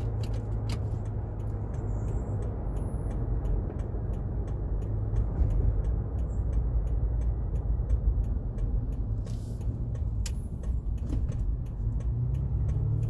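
Toyota FJ Cruiser's 4.0-litre V6 and road noise heard from inside the cabin while driving, a steady low rumble. A turn signal ticks about three times a second through most of it, ahead of a right turn.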